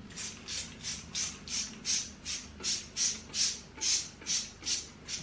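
Spray bottle of plain water pumped over and over into hair, short hissing sprays at about two to three a second.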